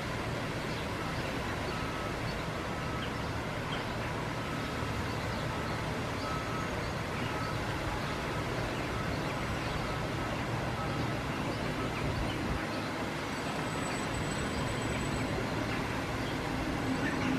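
Steady outdoor background noise with a low rumble and hiss.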